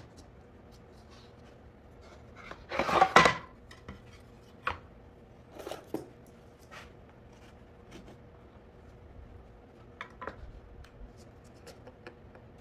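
Wooden drawer-box boards being handled and laid on a table: a loud clatter of wood knocking and sliding on wood about three seconds in, then scattered lighter knocks and taps.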